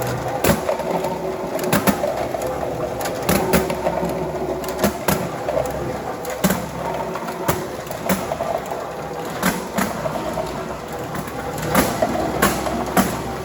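Conveyors of a treat-counting machine running with a steady hum, while dog treats clatter down into a container in irregular sharp clicks about once a second.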